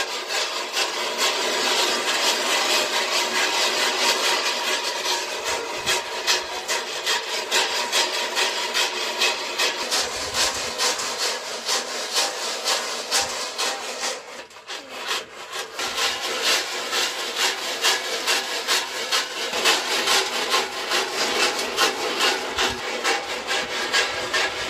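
Maize kernels rattling and sliding in a metal roasting box shaken back and forth over a wood fire: a steady, rhythmic scraping, with a short lull about halfway through.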